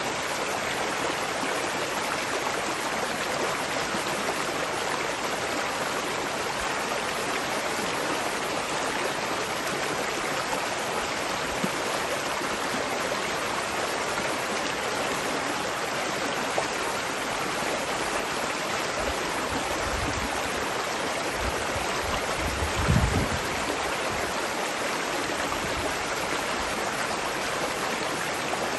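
Running water rushing steadily, as of a stream or small waterfall. Brief low rumbles come in about two thirds of the way through.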